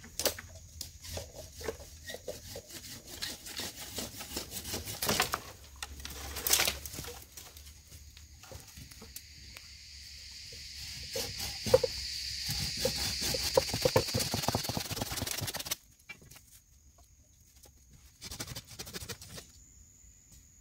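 Footsteps crunching through dry forest leaf litter, with twigs and sticks snapping, two sharp cracks about five and six and a half seconds in. Through the middle a high buzzing drone swells and then cuts off suddenly.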